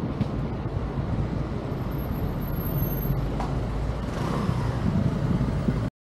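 Steady city traffic rumble that cuts off suddenly near the end.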